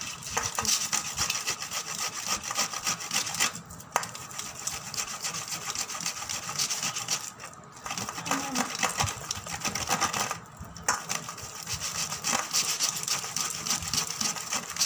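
Fibrous palmyra palm fruit rubbed back and forth over a stainless-steel hand grater, scraping the pulp from the fibres: a fast rasping scrape broken by three short pauses.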